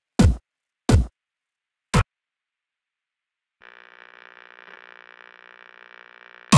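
Electronic dance track in a break: three short bass hits, each dropping in pitch, then a gap of silence and a faint steady electronic hum, before the full beat comes back in at the very end.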